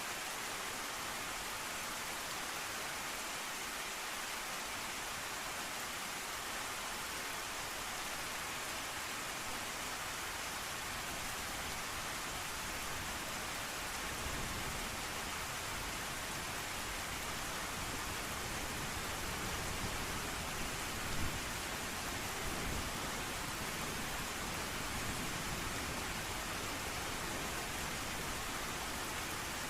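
Steady rain falling as an even hiss. A low thunder rumble comes in about halfway through.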